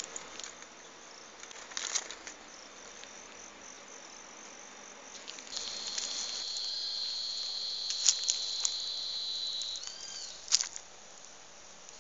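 An insect's steady high-pitched buzz that starts about halfway through and stops near the end, with a few sharp clicks around it.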